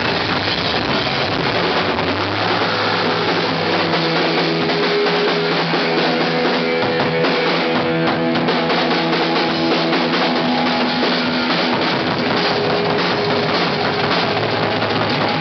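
A live rock band playing loud and fast: a drum kit with cymbals, and electric guitar and bass holding notes over the beat.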